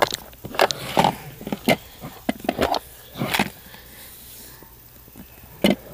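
Handling noise: irregular knocks, scrapes and rustles as a phone is moved about and small things are picked up, with a quieter stretch around the fourth and fifth seconds.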